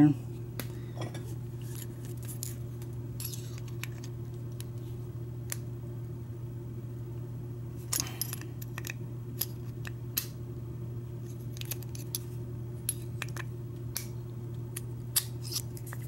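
Scattered small metallic clicks and scrapes of a metal padlock being worked open with a thin tool in its keyway, over a steady low hum.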